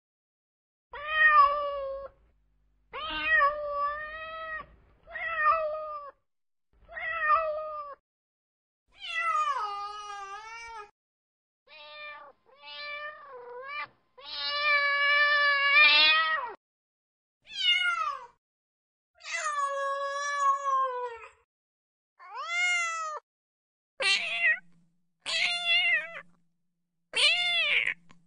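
Kittens meowing over and over: about fourteen separate meows a second or two apart, some sliding up or down in pitch, with one long drawn-out meow around the middle.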